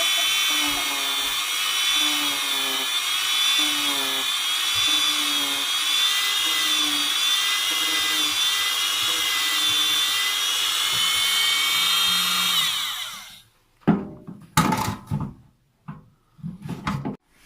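A small high-speed power tool, drill-like, runs steadily for about thirteen seconds with a slightly wavering pitch, then winds down and stops. A few short, sharp knocks follow near the end.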